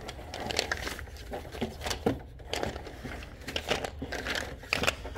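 Horizontal window blind slats rustling and clicking as they are pushed aside, an irregular run of short crinkly rattles.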